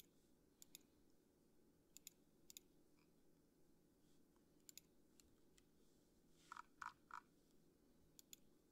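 Faint computer mouse clicks, a few single clicks spaced a second or more apart over near silence, with three quick soft clicks close together near the end.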